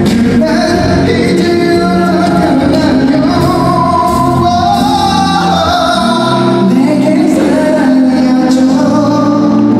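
Male singer singing a slow song into a microphone over amplified music accompaniment, heard live through a concert hall's sound system.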